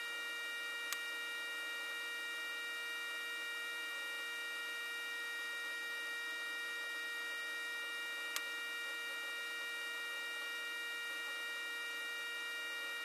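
Steady electrical hum and whine: several unchanging tones over a hiss, broken only by two faint clicks about seven seconds apart.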